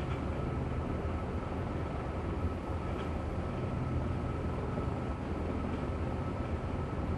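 CH-53 helicopter turning on the flight deck: a steady engine and rotor drone with a constant high turbine whine, heard from inside the ship's flight control station.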